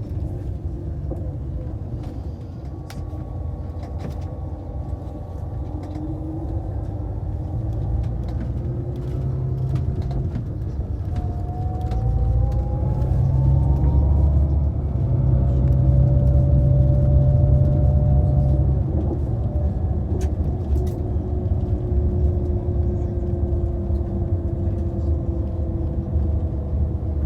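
Passenger vehicle in motion heard from inside: a steady low rumble that swells to its loudest about halfway through, with whining tones that slide up in pitch as it gathers speed.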